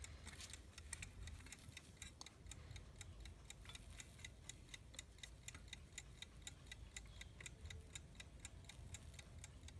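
The movement of a vintage US Time (Waterbury) wind-up alarm clock ticking, a fast, even tick-tock.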